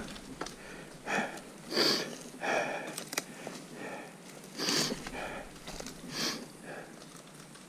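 A person breathing hard from exertion: a run of loud, rough breaths at uneven gaps of about half a second to a second and a half.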